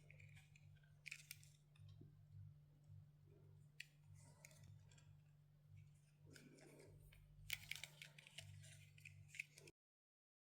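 Faint clicks and light scraping handling noises over a steady low hum, cutting to dead silence near the end.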